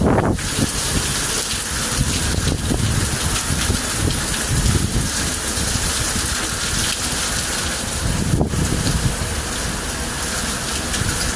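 Rain falling steadily, a continuous hiss with low, gusty rumbling from wind on the microphone.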